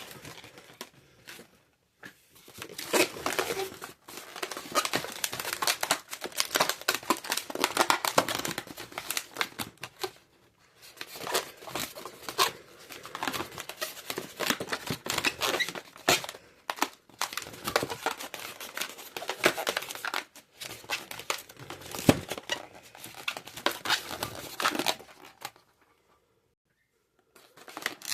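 Latex twisting balloons being handled and twisted, the rubber squeaking and crinkling in long stretches broken by short pauses.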